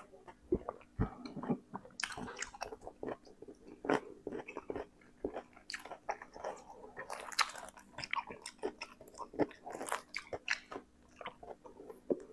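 Close-miked eating mouth sounds: a man swallowing, then chewing and smacking his lips in a string of short, irregular wet clicks.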